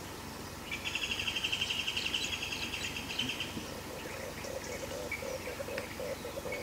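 Wild birds calling in forest: a rapid high-pitched trill for about three seconds, then a lower call repeated about two to three times a second.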